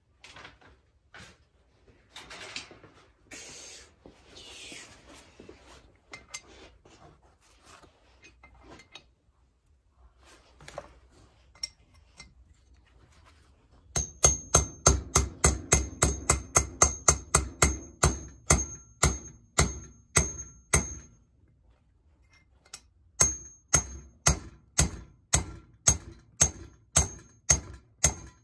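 Hammer blows on a valve-guide driver, driving a cast-iron valve guide into a Harley flathead engine: quick, even strikes about three a second, each with a short metallic ring. They come in two runs, the first starting about halfway through and the second after a brief pause. Before the blows there is only light scraping and handling of metal parts.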